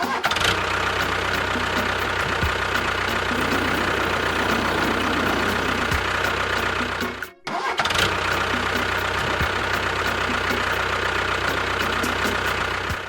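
An engine running steadily. It cuts out briefly about seven seconds in, then runs on as before.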